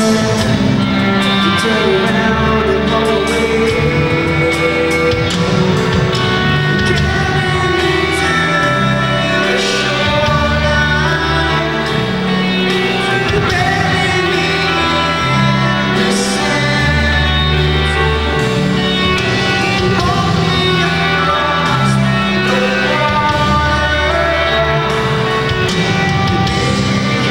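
Live rock band playing: electric guitars and drums, with a singer's voice over them.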